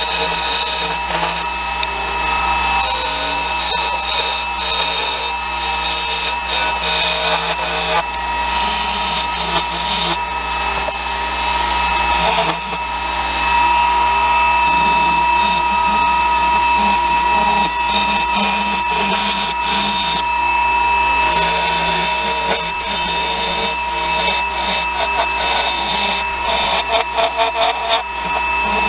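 Wood lathe running with a steady whine while a turning tool cuts a spinning aromatic cedar spindle: a continuous scraping hiss that swells and fades as the tool is worked along the wood.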